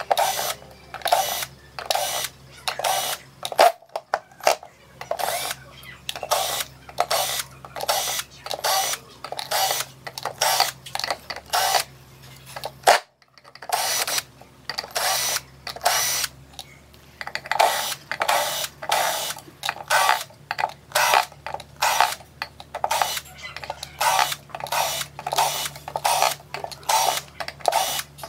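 Cordless drill/driver driving screws into power transistors on aluminium amplifier heatsinks, in short repeated pulses about two or three a second over a low steady hum, cut off briefly twice.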